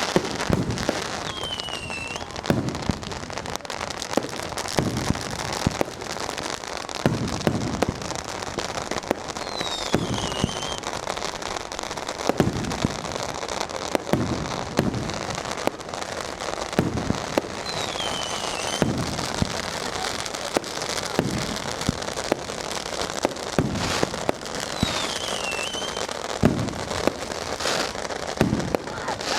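Fireworks going off all around: a dense, continuous crackle of firecrackers with a heavy bang every second or two. Four times a whistling firework sounds, its whistle falling in pitch over about a second.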